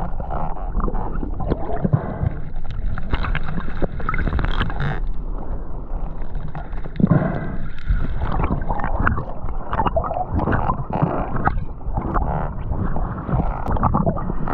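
Water sloshing and gurgling around the microphone, muffled and without treble, broken by many small knocks and crackles.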